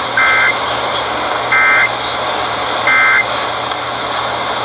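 Emergency Alert System end-of-message signal on AM radio: three short bursts of two-pitch digital data tone, about 1.3 s apart, over steady broadcast hiss. The bursts mark the end of the alert message.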